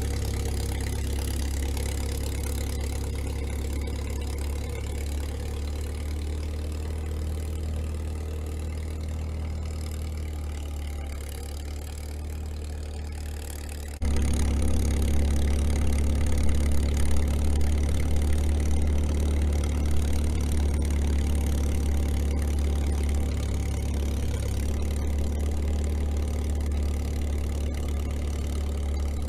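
International Harvester TD-6 crawler's four-cylinder diesel engine running steadily as it pulls a tire drag through deep snow. It gets suddenly louder about halfway through.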